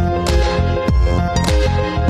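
Electronic music with a steady beat and heavy deep bass, held synth notes over drum hits roughly every half-second.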